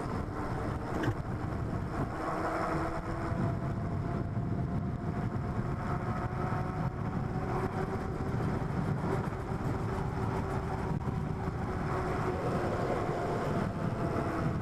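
A Super73 S2 electric bike cruising at pedal-assist level 2: steady wind and tyre rumble, with a faint steady whine above it.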